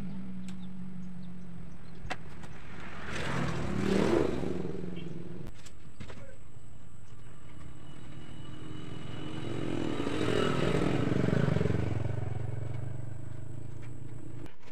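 Motor vehicle engine noise over a steady low hum, swelling and fading twice, about four seconds in and again from about ten to twelve seconds, like traffic passing. A few sharp clicks and light rattles come from chicken wire mesh being cut and handled.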